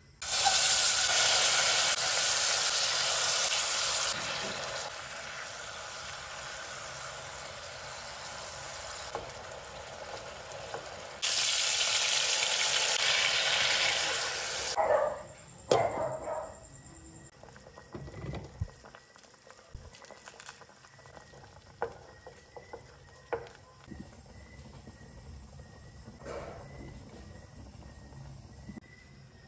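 Meat frying in a hot pot: a loud sizzle that starts suddenly and settles lower after a few seconds. It flares again for about three seconds as the remaining sauce and water are poured in, then drops to scattered clicks and knocks of utensils on the pot.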